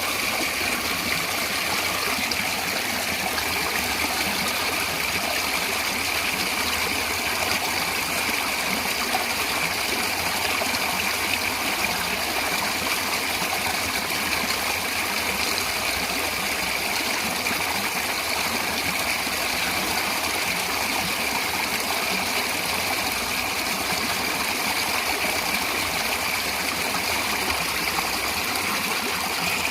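Running water of a stream flowing and trickling, a steady, even rushing.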